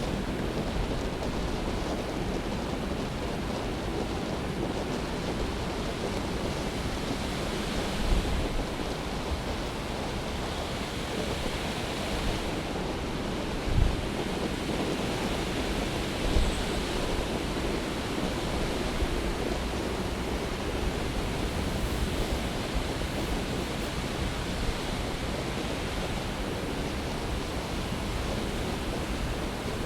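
Heavy storm surf crashing in a steady, unbroken wash of noise, with wind on the microphone. A few brief low thumps stand out, about a third and halfway through.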